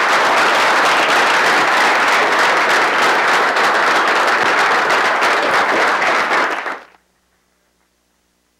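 A roomful of people applauding, dense clapping that cuts off abruptly about seven seconds in.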